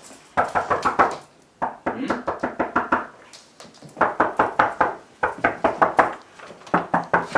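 Rapid, hard knocking on a front door in five quick bursts of strokes, with short pauses between the bursts.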